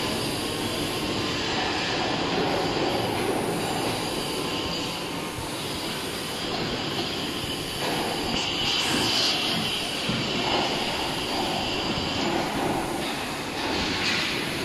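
Robotic MIG welding on large carbon-steel pipe: a steady, noisy hiss over machinery, briefly brighter and harsher a little past the middle.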